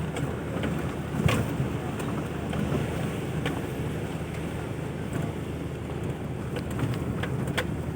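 Toyota Land Cruiser Prado's 1KZ-TE turbo diesel engine running at a steady drone on the move, with wind noise on the microphone and a few sharp clicks or knocks.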